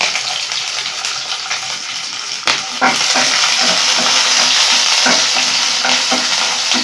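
Garlic and green chillies frying in hot oil in a nonstick pan: a steady sizzle, with a spoon knocking and scraping against the pan as they are stirred. The sizzle grows louder about three seconds in, when the stirring starts.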